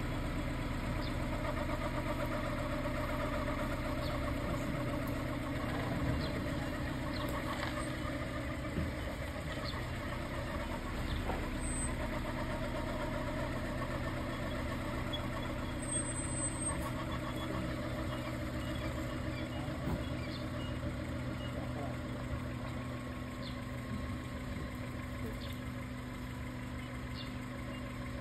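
Car engine idling steadily, an even low hum with no change in speed.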